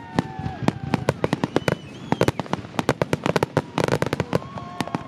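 Aerial fireworks crackling and popping, many sharp reports a second. Some whistles hold a pitch and then drop, and there is a louder rushing burst near the middle.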